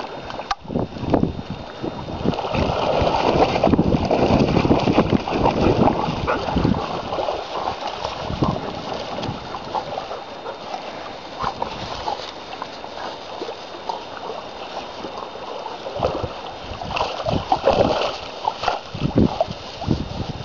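River water splashing and lapping as a dog swims with a stick in its mouth, paddling toward the bank. Near the end come heavier irregular splashes as it scrambles out of the shallows onto the grassy bank.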